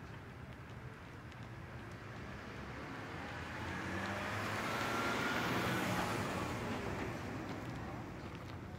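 A BMW sedan pulling out of a driveway and driving past at low speed, its engine and tyre noise swelling to a peak about halfway through, then fading. Steady low traffic hum underneath.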